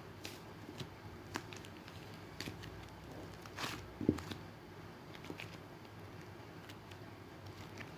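Hands squishing and poking a soft slime, giving scattered sticky clicks and snaps, with a short crackle and a sharper click about halfway through.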